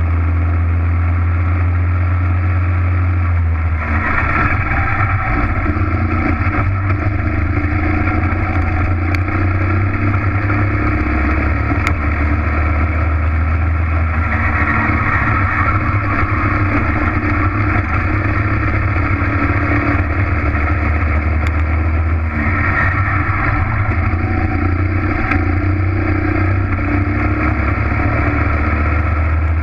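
Racing go-kart engine running hard under load, heard loud and close from a camera mounted on the kart. Its note shifts a few times, with a brighter, higher sound about 4, 14 and 22 seconds in as the kart accelerates.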